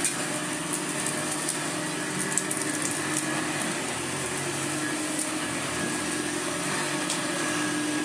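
1982 Hoover Senior U4064 upright vacuum cleaner running steadily over a shaggy rug, its motor holding one steady hum, with a few light ticks. It is running okay, with the belt and brush roll working.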